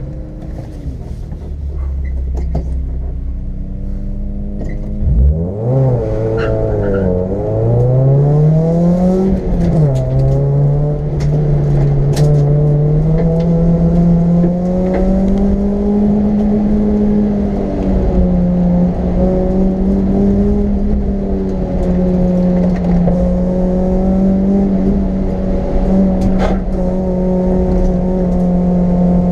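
Race car engine heard from inside the cabin, running at the start line and then launching about five seconds in. The revs rise and drop twice through quick upshifts, then climb to a high, fairly steady pitch as the car drives hard. A few sharp clicks and knocks come from the car.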